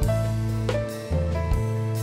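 Instrumental background music, with a bass line under a melody that changes note about every half second.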